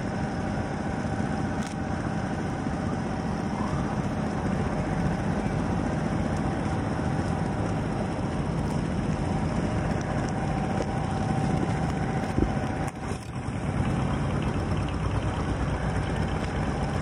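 Small wooden boat's engine running steadily under way, with a brief dip in loudness about thirteen seconds in.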